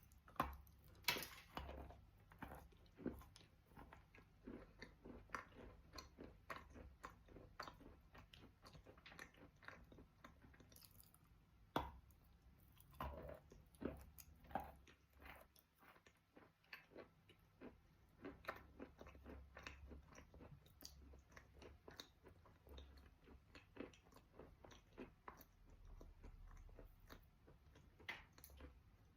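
Quiet, close-up chewing of a moistened piece of Khrapovsky chalk: an irregular, steady run of small crunches, with a few louder bites.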